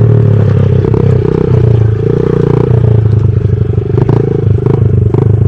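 Honda CRF50 mini dirt bike's small four-stroke single engine running at fairly steady revs through an aftermarket Big Gun exhaust while being ridden, with a couple of brief dips in throttle.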